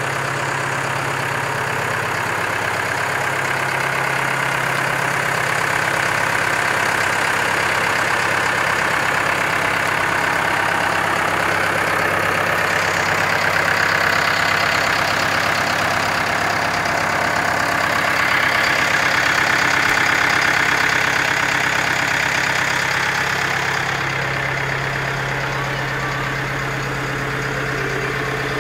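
McCormick CX95 tractor's diesel engine idling steadily.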